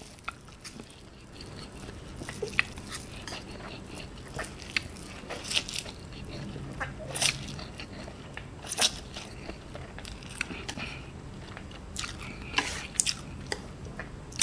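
A person slurping and chewing instant noodles eaten with chopsticks: irregular wet mouth smacks and clicks, with a few longer slurps.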